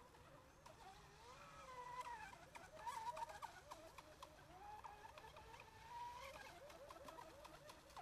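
Graupner Midnight Gambler 2.0 model racing boat heard faintly at a distance, its motor whining and wavering up and down in pitch as it speeds and turns.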